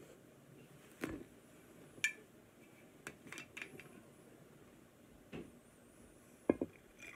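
Glass clinks and knocks as a glass whiskey bottle and a glass mug are handled on a table, a few seconds apart, one clink ringing briefly. Near the end whiskey starts pouring into the mug of lemonade.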